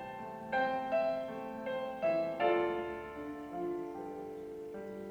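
Slow piano music: a few notes struck about a second apart and left to ring, fading away.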